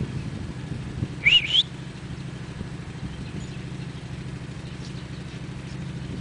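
A short, loud, high-pitched squeal or whistle about a second in that glides up, dips and rises again, over a steady low hum like a distant engine running.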